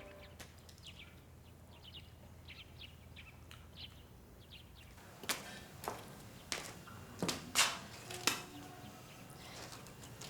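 Faint bird chirps, then from about halfway a series of sharp, irregular knocks and clicks.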